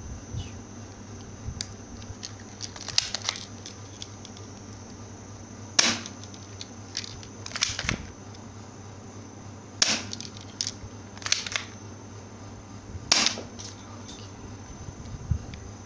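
Spring-powered M92A1 airsoft toy pistol being fired. There are five sharp snaps spaced one and a half to two seconds apart, with fainter clicks in between.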